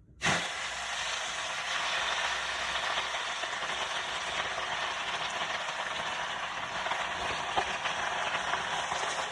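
Food sizzling in hot oil in a pan: a steady frying hiss with small crackles and pops, starting abruptly a moment in.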